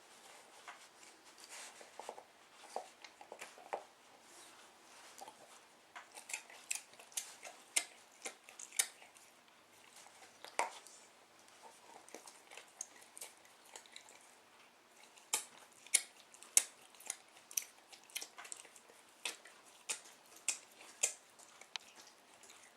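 Staffordshire Bull Terrier chewing, with irregular sharp crunching clicks that come in clusters of up to a few a second, busiest about six to nine seconds in and again from about fifteen seconds in.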